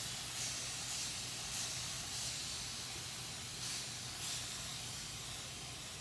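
Spray bottle misting water onto hair: a steady fine hiss with slight repeated swells, wetting the hair before styling.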